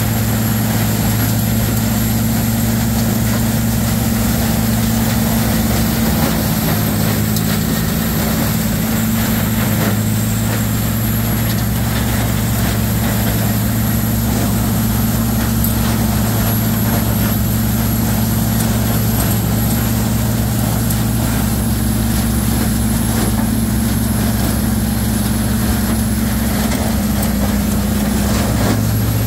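Rotochopper MP2 horizontal grinder running steadily at constant speed, its CAT C7 diesel engine droning while it grinds wood into mulch. A faint high steady whine runs over the drone.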